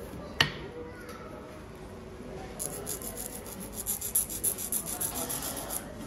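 A nail file rubbing quickly back and forth across a fingernail in short, high scratching strokes, starting about two and a half seconds in. One sharp click comes just before, near the start.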